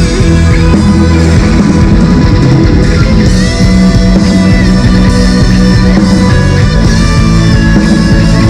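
Loud, continuous rock music led by guitar, with sustained held notes over a full, dense band sound.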